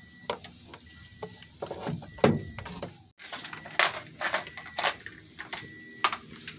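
Irregular clicks and knocks of a plastic coolant overflow reservoir being pulled free and handled. The sound cuts out briefly about three seconds in.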